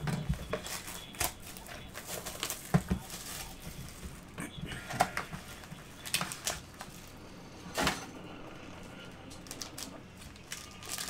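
Hands opening a shrink-wrapped trading-card hobby box: plastic wrap and cardboard rustling, with scattered sharp clicks and knocks every second or so.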